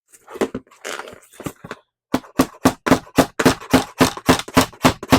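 Hammer tapping a finish nail into quarter round trim: after a couple of seconds of irregular handling clicks, quick, even light blows start, about three or four a second.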